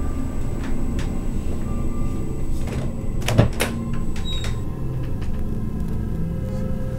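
A low, steady rumbling drone, with scattered clicks and a louder knock-and-click cluster about three and a half seconds in, the sound of a door being handled and pushed open.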